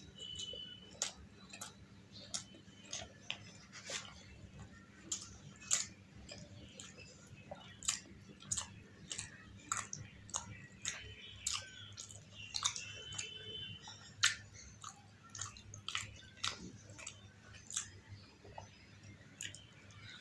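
Close-miked wet chewing and lip smacking of puri soaked in masala egg gravy, with short sharp mouth clicks coming irregularly, one or two a second.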